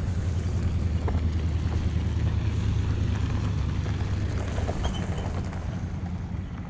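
Pickup truck driving past close on a gravel road: a steady low engine and tyre rumble that swells and then fades after it goes by, with some wind buffeting on the microphone.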